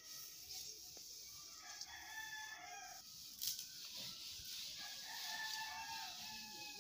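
Rooster crowing twice, long calls, with a single sharp knock about halfway through.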